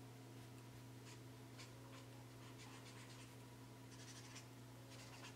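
Faint scratching of a felt-tip marker's nib drawing short strokes on paper: a few single strokes, then a quick run of strokes in the middle and more near the end. A low steady hum runs underneath.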